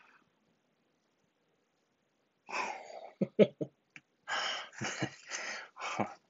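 Near silence for about two and a half seconds, then a man's breathy vocal noises: exhaled sighs and short muffled mutters, not clear words.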